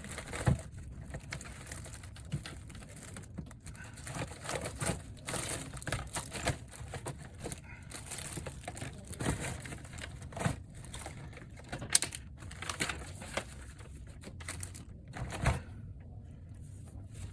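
Irregular small clicks, taps and crinkling from hands working on a MacBook Pro laptop and its parts during reassembly, with a few sharper knocks scattered through.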